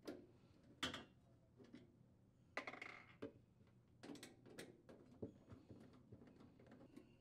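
Faint scattered clicks and short scrapes of a quarter-inch nut driver on the screws of a refrigerator's evaporator access panel, as the screws are unthreaded. The loudest come about a second in and near three seconds in.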